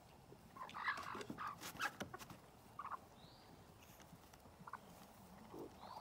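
Goat kids' hooves knocking and scuffing on a wooden pallet under a hay pile, with short animal cries mixed in. There is a burst of knocks about a second in and a few scattered ones later.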